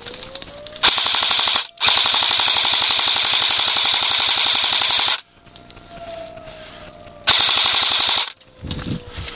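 Airsoft rifle firing full-auto in three bursts: a short one, a long one of about three and a half seconds, then another of about a second. Each is a fast, even rattle of shots that starts and stops abruptly.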